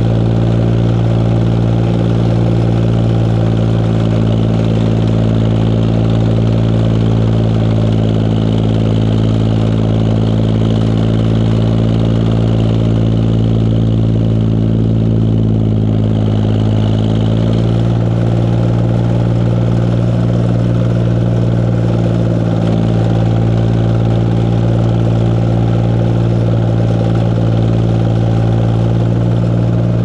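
Tractor engine running steadily, heard from the hood right beside its upright exhaust stack. Its pitch dips briefly about halfway through, then recovers. Cicadas buzz faintly behind it.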